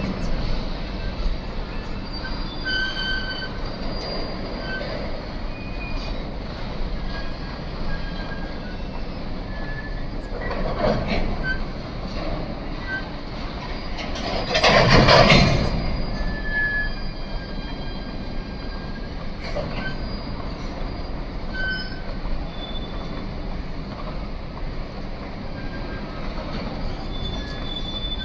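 Container flat wagons of a freight train rolling past on the rails: a steady rumble of steel wheels on track, with short, high-pitched wheel squeals dotted throughout. The wheel noise swells briefly about eleven seconds in and more strongly about fifteen seconds in.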